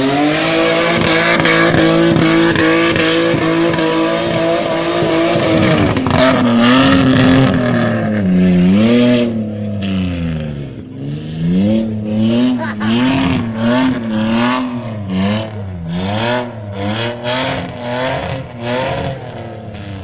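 Off-road vehicle engine held at high revs for about six seconds, then revving up and down over and over in quick swells as the throttle is worked.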